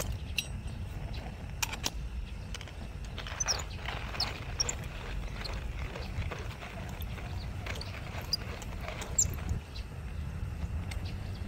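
Coffee-brewing gear being handled: scattered light clicks and clinks, some with a short high ring, over a low steady rumble.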